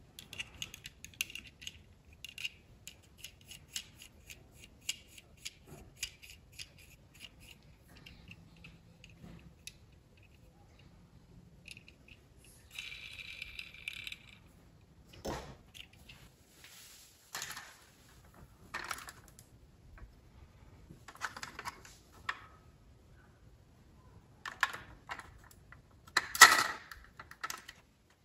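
Handling noise from a die-cast scale model motorcycle turned in the hands: a run of rapid light clicks and ticks over the first several seconds, then scattered taps and rattles, with a louder knock near the end.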